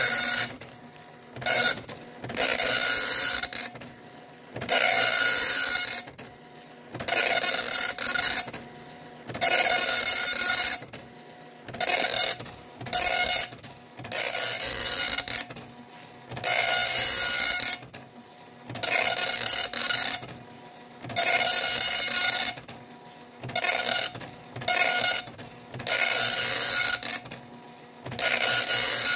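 Star LC-10C nine-pin dot-matrix printer printing lines of text: the print head makes a loud, rasping buzz for half a second to a second and a half at a time, broken by short quieter pauses between lines as the paper advances.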